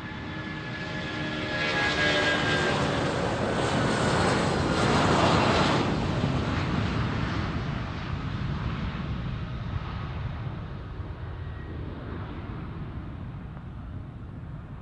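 Jet aircraft passing close by: engine noise swells to its loudest about four to six seconds in, the whine sliding down in pitch as it goes past, then slowly fades away.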